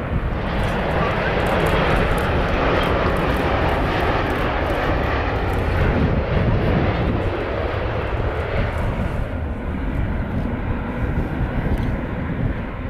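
Jet airliner passing: a steady rush of engine noise that swells over the first two seconds, holds, then slowly fades.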